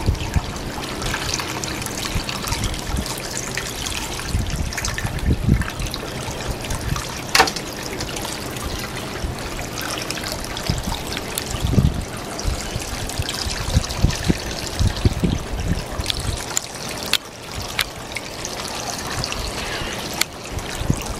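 Fresh water running steadily out of a boat's scupper and trickling onto the snout of a drinking manatee and the water surface, with a few sharp splashes.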